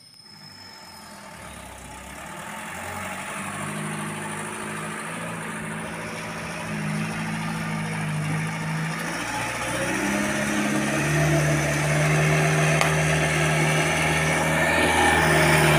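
A log-laden truck's engine running at low revs as the truck drives slowly closer, growing steadily louder, its note dropping and picking up again a few times as the throttle changes.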